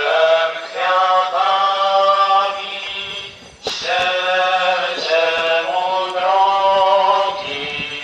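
A man chanting a liturgical hymn, in sung phrases of a few seconds with short breaks between them. A short sharp click comes about three and a half seconds in.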